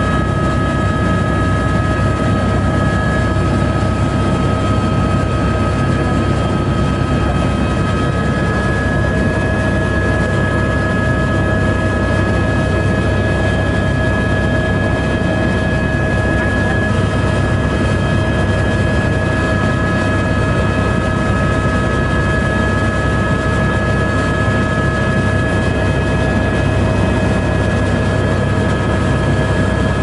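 Helicopter in steady flight heard from inside the cabin: constant rotor and engine noise with a steady high-pitched whine layered over it.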